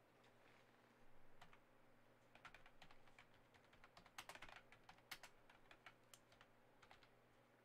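Faint typing on a computer keyboard: irregular runs of key clicks, with a low steady hum underneath.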